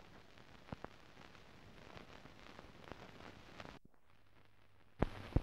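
Surface noise from a silent newsreel film transfer: a faint hiss with scattered clicks and crackle. It drops to near silence about four seconds in, then two sharp loud clicks come near the end.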